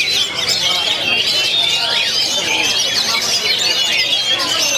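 Many caged Oriental magpie-robins (kacer) singing at once, a dense, unbroken chorus of quick overlapping chirps and whistled phrases.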